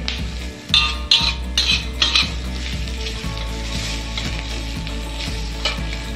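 Vegetarian mock meat and sliced red chillies sizzling in a hot wok while a metal spatula stirs and scrapes against the pan. Several louder scraping strokes come in the first two seconds, then a steadier sizzle.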